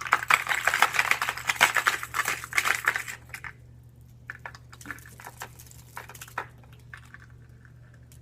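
Hard plastic fishing lures and tackle box parts clattering and clicking as they are handled: a dense rattle for about three seconds, then scattered separate clicks.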